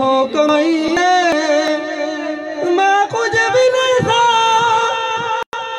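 A man singing a Punjabi folk song into a PA microphone, holding long, wavering notes with sliding ornaments. The sound cuts out briefly near the end.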